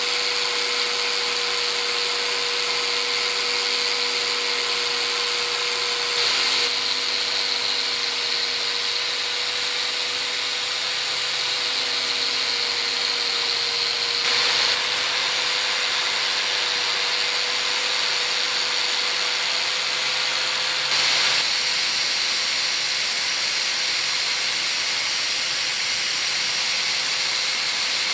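An electric power tool running at a steady speed, with a constant hum and an even hissing whir. The sound jumps briefly in level three times, about every seven or eight seconds.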